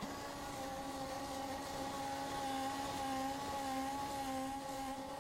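Steady whine of factory machinery, a pitched hum whose pitch wavers slightly and which grows a little louder in the middle.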